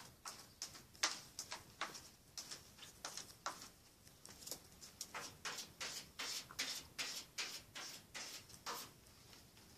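Cat digging in a litter box, its paws raking granular litter in a quick run of short scratchy strokes, about two to three a second, as it covers its droppings.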